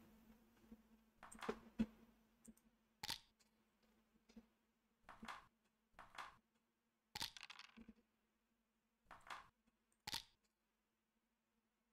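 Faint short clacks from a computer backgammon game's sound effects, checkers being placed and dice being rolled, about seven of them a second or so apart over a faint steady hum.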